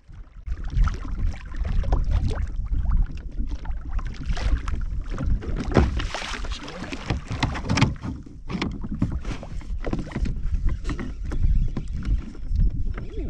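Water sloshing and slapping irregularly against the hull of a pedal-drive fishing kayak under way on choppy water, with wind rumbling on the microphone.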